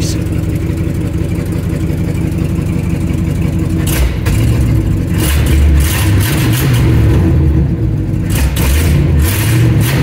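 1970 GMC C30 truck engine, heard from inside the cab. It idles steadily, then from about four seconds in it is revved up and down several times.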